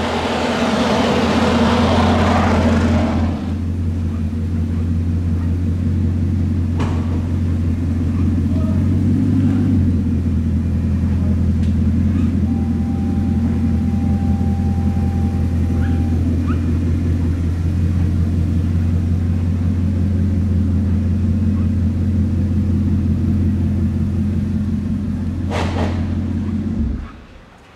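Bugatti Chiron Super Sport 300+'s quad-turbo W16 engine idling with a steady low hum. A rushing hiss sits over it for the first three seconds, and the engine shuts off suddenly near the end.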